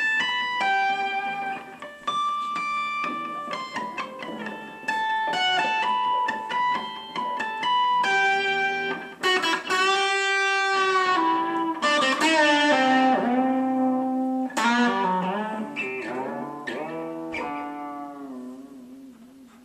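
Instrumental music: a melody of separate plucked notes, turning to gliding, bent notes about halfway through, then fading out near the end.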